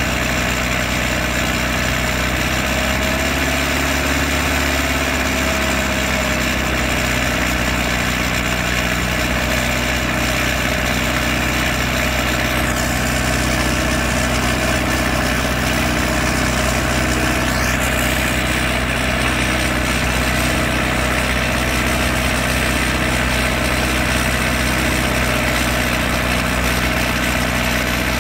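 Allis-Chalmers D19 tractor engine running steadily under load, driving a PTO dynamometer during a horsepower test.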